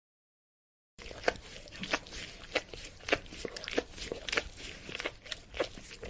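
A dog licking: wet tongue-and-mouth clicks and smacks in an irregular run, starting about a second in.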